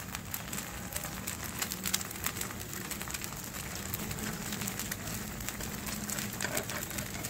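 Eggs frying in oil on a flat griddle (tawa), sizzling with a steady dense crackle.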